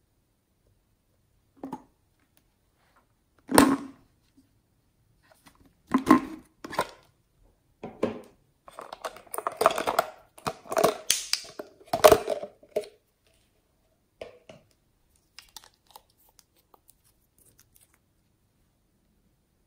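Small plastic bottles and caps being handled: scattered sharp clicks and rustles, with a busier stretch of twisting and scraping plastic about halfway through as a bottle cap is worked open.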